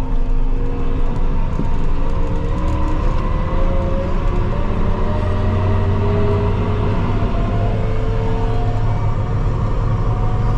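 Tractor engine running steadily on the road, heard from inside the cab: a deep rumble with a few steady hums that drift slowly in pitch.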